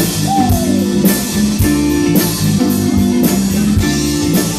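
Live band playing a rock instrumental intro in D minor: electric guitar, bass and drum kit keeping a steady beat, with a short bending guitar note near the start.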